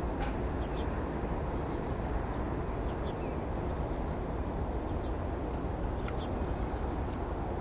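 Steady low outdoor rumble with a few short, faint bird chirps scattered through it.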